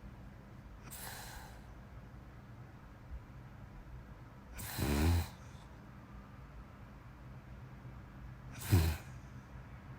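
A sleeping person snoring: a soft breath about a second in, a longer snore near the middle and a short snore near the end, the last the loudest, over a faint steady low hum.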